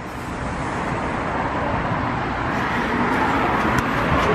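Steady street traffic noise, slowly growing louder.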